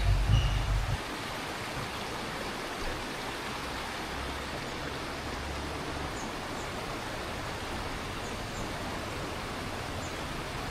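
Steady rush of running water, an even hiss with no change. Low rumbling buffets on the microphone in the first second.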